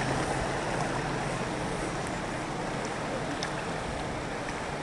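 Steady rushing of a fast, muddy river flowing past a bamboo raft, with a few faint splashes.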